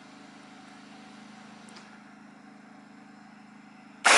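A steady low hum, then about four seconds in a single AR-15 rifle shot that cracks out loud and echoes away over a couple of seconds.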